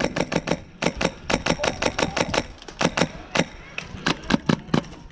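Polarstar HPA-powered airsoft M4 firing rapid strings of sharp pneumatic shots, about six to eight a second, with a brief pause about halfway.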